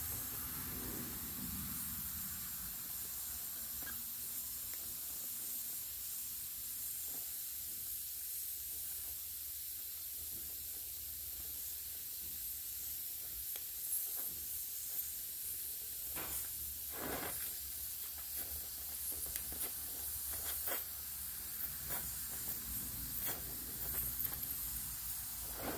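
Oxy-acetylene welding torch flame hissing steadily while filler rod is fed into a weld on sheet steel, with scattered small pops and crackles in the second half.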